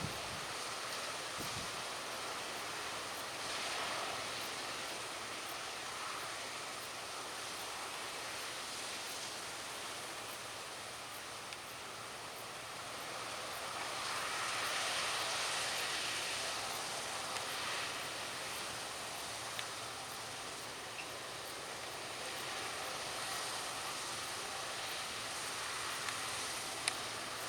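Wind blowing across an open field, a steady rushing noise that swells and eases, with a few tiny clicks.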